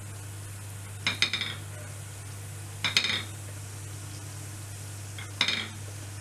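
Three short bursts of clatter and sizzle, about two seconds apart, as breadcrumb-coated chicken balls go one at a time into hot frying oil in a pan, over a steady low hum.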